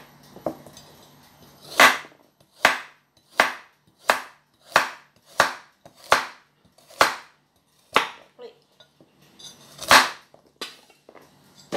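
Chef's knife slicing a carrot into rounds on a wooden cutting board: about ten sharp chops, evenly spaced under a second apart, with one louder chop near the end.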